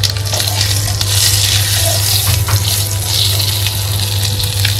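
Dried red chillies and cumin seeds sizzling in hot ghee in a metal kadai, stirred with a steel spatula that gives small scrapes and taps against the pan. A steady low hum runs underneath.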